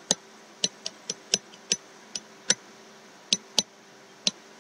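Sharp, irregular clicks, about two or three a second, as each stroke of handwriting is put down with a pen on a digital whiteboard, over a faint steady hum.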